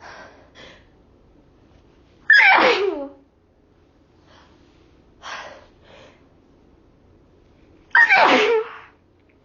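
A woman sneezing loudly twice, about six seconds apart, with quick breathy inhales before each sneeze. The sneezes are brought on by chhikni sneezing snuff.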